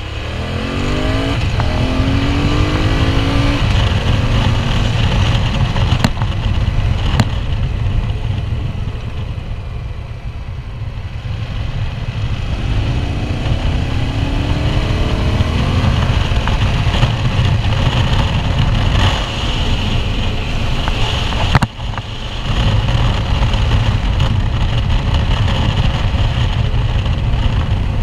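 QJ Motor SRT 800's parallel-twin engine under way and accelerating, its note climbing in pitch twice, in the first few seconds and again around the middle, over a steady rush of wind noise. The sound briefly drops out about three quarters of the way through.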